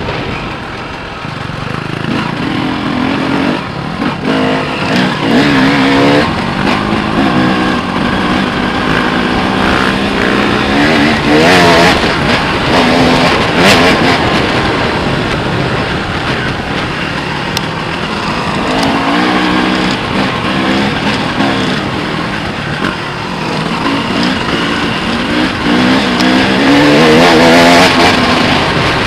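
Enduro dirt bike engine heard from on board, its revs rising and falling over and over as it rides, over a steady rush of wind and trail noise.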